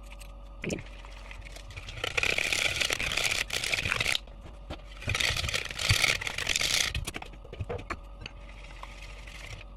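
Wire whisk scraping and rattling around a plastic mixing bowl as a thick peanut butter sauce is beaten by hand. It comes in two bursts of about two seconds each, the first stopping abruptly, with light clinks in between.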